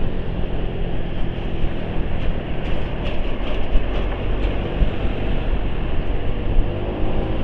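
Steady low rumble and road noise of a moving vehicle, with no single event standing out.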